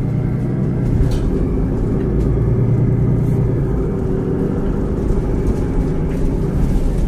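City bus's diesel engine idling at a standstill, a steady low rumble.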